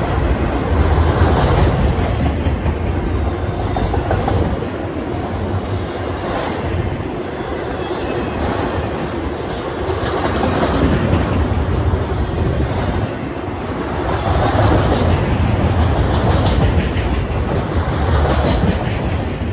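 Freight train of autorack cars rolling past close by: a steady, loud rumble of steel wheels on rail with recurring clickety-clack as the wheel sets go by.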